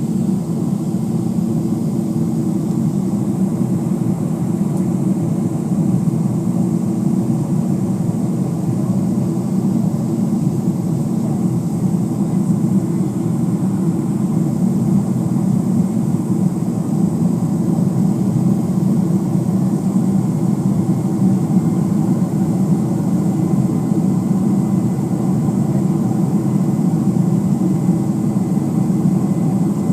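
Steady engine and airflow rumble of a jet airliner, heard inside the cabin, even throughout with no change in pitch.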